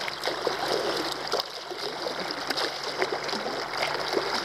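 Lake water rushing and splashing close to the microphone as a wakeboard is pulled across the surface: a steady hiss with many small gurgles and splashes.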